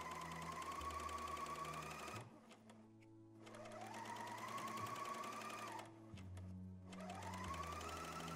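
Bernina L 460 overlocker running in three bursts as it sews and trims a jersey seam. Each time the motor speeds up with a rising whine, runs steadily for about two seconds, then stops, with short pauses about two seconds and about six seconds in.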